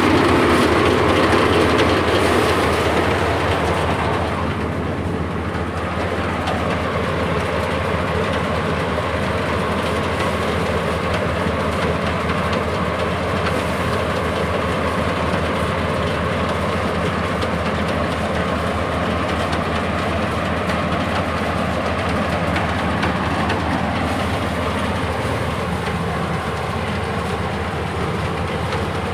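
A machine running steadily with a fast, continuous rhythmic clatter.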